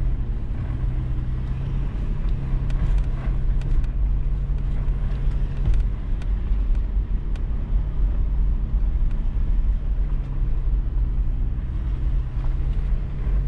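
Toyota 4Runner driving slowly over a rutted dirt trail: a steady low engine drone, with scattered sharp ticks and knocks from the rough ground.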